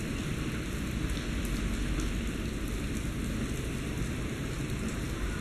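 Steady rain falling, with fine drop ticks and a low rumble underneath.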